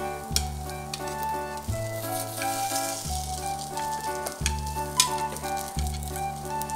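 Pork-stuffed eggplant slices sizzling in shallow oil in a frying pan, with sharp clicks of a metal spoon and chopsticks against the pan as the slices are turned over, the loudest about five seconds in. Background music with a steady bass plays throughout.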